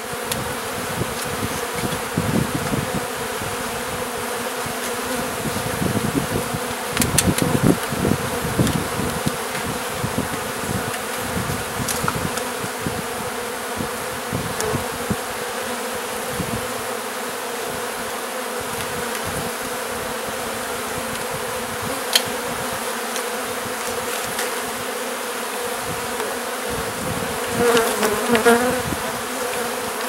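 Swarm of honey bees buzzing steadily in a continuous hum, with a few light knocks. A louder, wavering buzz comes near the end.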